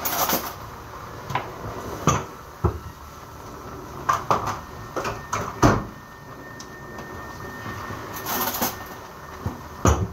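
Kitchen cupboard sounds: crockery set down on a shelf in a few light knocks and clinks, and the cupboard door pushed shut with a louder knock a little before six seconds in. This is followed by a brief scraping rush and one more knock near the end.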